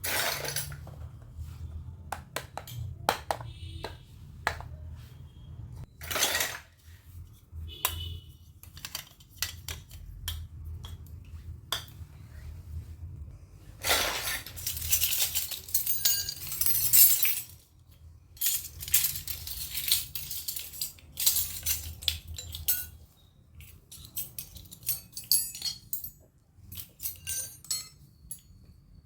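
Miniature toy kitchen pieces being handled: many small sharp clicks and clinks as they are picked up, knocked together and set down, with a few longer noisy stretches lasting a second or more around the middle.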